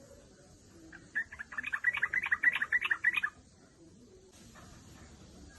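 Yellow-vented bulbul (trucukan) giving a rapid chattering call: a run of quick repeated notes lasting about two seconds, starting about a second in. It is the female's call, used to draw a male.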